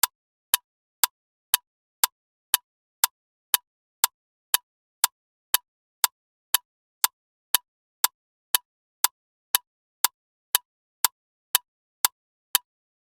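Clock ticking loudly and steadily, about two sharp ticks a second.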